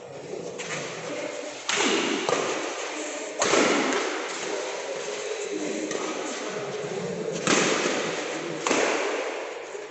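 Badminton rackets striking the shuttlecock during a doubles rally: four loud, sharp smacks, each ringing on in the hall, over a background of spectators' voices.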